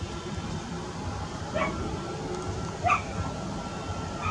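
Steady rumble of a Boeing 737 MAX's jet engines as it rolls slowly along the runway, with two short, loud barking yelps, about one and a half and three seconds in.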